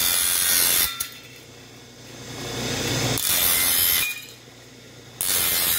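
Table-mounted circular saw cutting aluminium boat-hull sheet: three loud, high-pitched passes of the blade through the metal, each about a second long, with the saw running more quietly between them.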